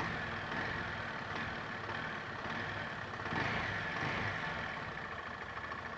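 Rebuilt motorcycle engine running with its clutch-side cover loosened and the oil drained, with a small gear noise, a tec-tec, crec-crec, coming from the clutch side. It revs up briefly a little past halfway, then settles again.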